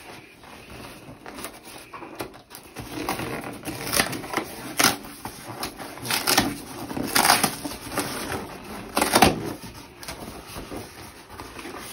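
Cardboard box being pried open by hand: irregular scraping and crinkling of the cardboard flaps, coming in a string of short bursts from about four seconds in.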